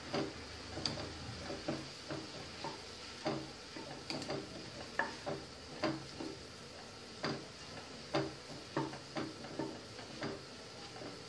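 A yellow plastic spatula scraping and tapping against a non-stick kadai as chopped okra is stir-fried, in irregular taps about once or twice a second, over a faint steady sizzle.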